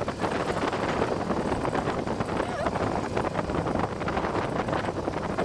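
Four-wheeler (ATV) engine running as it drives along, with wind buffeting the microphone.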